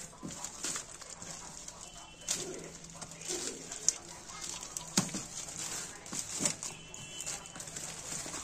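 Plastic courier mailer being slit with a key and torn open by hand: irregular crinkling of the plastic with several sharp rips.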